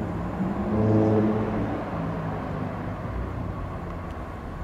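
Class 170 Turbostar diesel multiple unit running past on a curve, its underfloor diesel engines droning. The engine note is strongest about a second in, then eases into a lower rumble as the train goes by.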